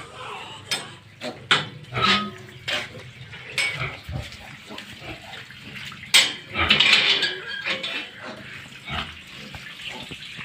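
Pigs making noise among sharp metal clanks and knocks, with a louder cry about six seconds in.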